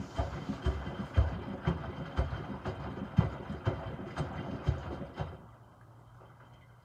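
Miele W2573 front-loading washing machine in its second rinse, the drum tumbling microfiber cloths through rinse water with a splashing thud about twice a second. About five seconds in the drum stops and only a faint low hum remains.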